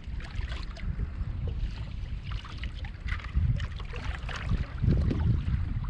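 Wind buffeting the microphone over water slapping and splashing against a fishing kayak's hull on open sea, in uneven swells.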